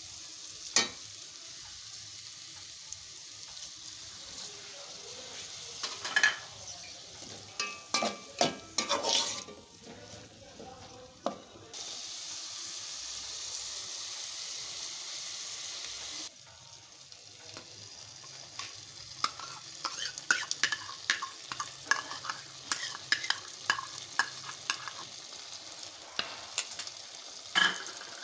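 Food sizzling in hot oil in a pan while a spatula stirs it, with clusters of sharp clicks and scrapes of the spatula against the pan. The sizzle steps up abruptly about twelve seconds in and drops back about four seconds later.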